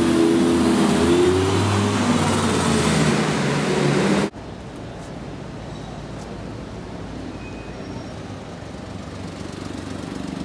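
Lamborghini Gallardo Spyder's V10 engine running loudly as the car drives past, its pitch easing down. About four seconds in it cuts off abruptly, giving way to steady, quieter street traffic noise.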